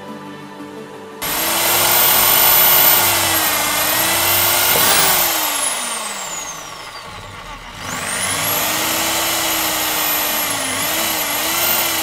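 Electric power drill boring holes through a 4-inch PVC pipe. The motor whine starts abruptly about a second in, wavers in pitch under load, then winds down with a falling pitch around the middle. It starts again and dips and recovers several times as the bit bites into the plastic.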